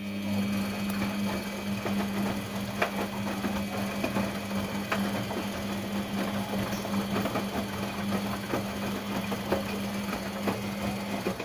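LG WD-80155NUP washing machine turning its drum in the wash cycle: a steady motor hum with many small clicks and knocks from the wet load tumbling. It starts and stops abruptly, one turning phase of the wash.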